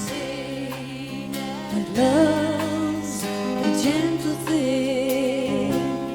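Live country band playing the opening of a song: strummed guitar chords with a lead melody line that slides between notes with vibrato, entering about two seconds in.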